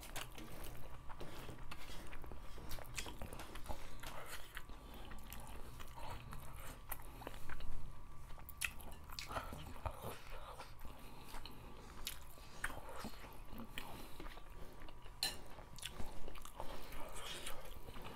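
Close chewing and mouth sounds of two people eating rice mixed with fish soup by hand, with scattered small wet clicks and smacks.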